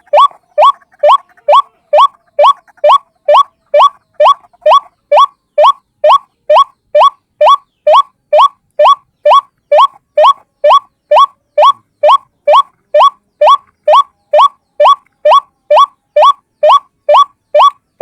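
White-breasted waterhen (ruak-ruak) calling: a single short rising note, repeated evenly about two and a half times a second, as on a bird-trapping lure recording.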